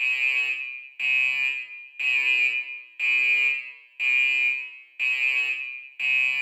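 Electronic alarm tone beeping about once a second: seven high-pitched beeps, each starting sharply and fading away.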